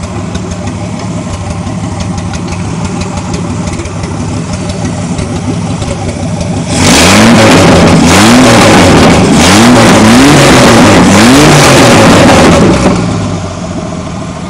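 Freshly swapped AMC 258 (4.2 L) carbureted straight-six running on open headers with no exhaust. It idles steadily, then about seven seconds in it is revved by hand at the carburetor, rising and falling about four times, and settles back to idle about thirteen seconds in.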